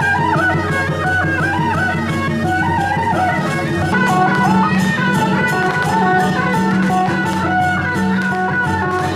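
Instrumental music: a melody moving up and down in steps over a steady low drone.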